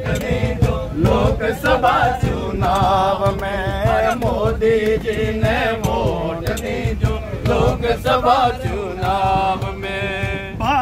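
A group of men singing together in a chant-like unison, their voices rising and falling, over a steady low rumble inside a crowded train carriage.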